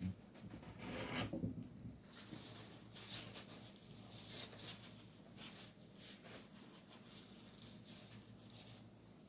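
Faint rubbing and scuffing of a paint cup being handled, with a louder scrape about a second in.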